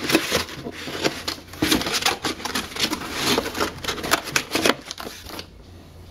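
Cardboard packaging being handled: inner cardboard inserts and flaps scraping, sliding and knocking against each other in a quick run of scuffs and taps that stops about five and a half seconds in.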